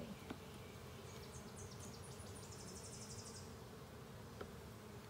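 Faint, steady hum of honeybees over an open hive, with a faint, rapid, high-pitched trill from about a second in to nearly four seconds, and a couple of light clicks.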